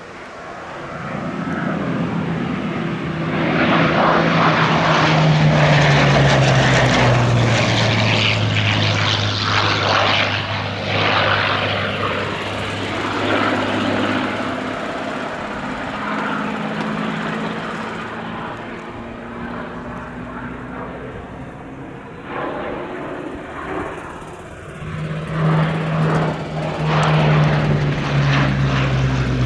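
Hawker Sea Hurricane's Rolls-Royce Merlin V12 engine flying past: the engine note builds to a loud peak and drops in pitch as it goes by. It eases off, then swells again with a second falling pass near the end.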